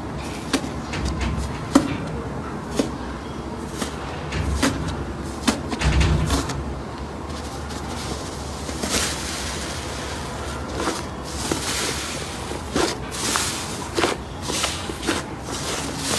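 Fluffy white slime pressed and squeezed by hand, giving many small sharp clicks and crackling pops with a few soft low thuds.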